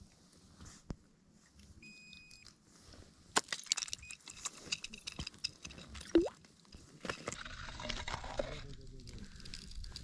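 A perch being landed from an ice-fishing hole: a run of light clicks and rattles as the fish comes up and flaps on the ice, with a short rising squeak about six seconds in. A brief steady beep sounds about two seconds in.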